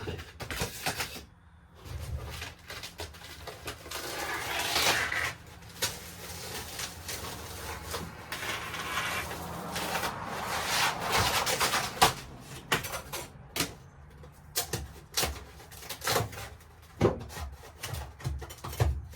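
Laminate wall covering being pried and torn off a camper wall: rough scraping and tearing, then a run of scattered knocks and clicks in the second half.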